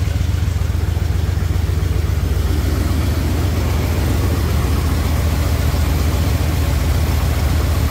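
Pickup truck engine idling steadily, running as the donor vehicle to charge a dead battery through jumper cables.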